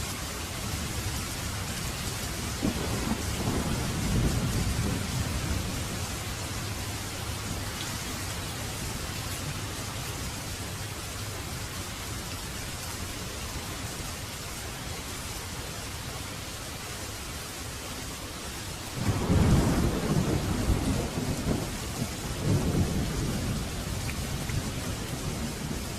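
Steady rain with two rolls of thunder: a rumble a few seconds in and a louder one about three quarters of the way through.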